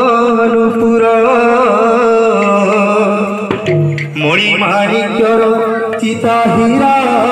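Odia devotional kirtan: a man sings into an amplified microphone over a steady drone. The singing breaks off briefly about halfway through, then resumes.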